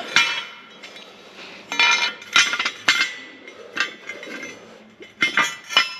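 Flat steel rotor segments clanking against each other and the concrete floor as they are handled and fitted together: a series of sharp metallic clinks, several ringing briefly.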